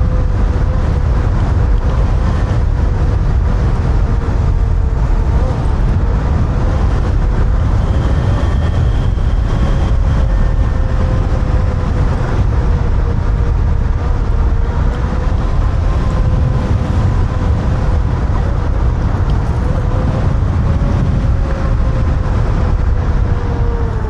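Kaabo Wolf King GTR electric scooter riding at speed: a steady electric-motor whine that drifts slightly up and down in pitch with speed, over heavy wind rumble on the microphone and tyre noise.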